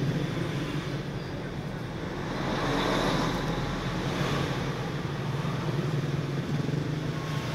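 A steady low motor hum, with a broad swell of rushing noise around the middle.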